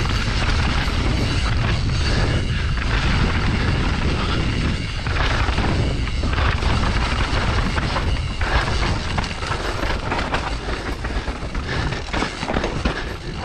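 Mountain bike riding down a dirt and rock forest trail: tyres rolling and the bike rattling over the rough ground, with a constant low rumble of wind buffeting the action camera's microphone.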